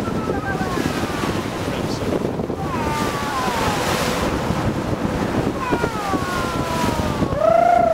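Wind and water rushing past a ship's bow under way, with several faint falling whistle-like tones; near the end a louder wavering tone comes in.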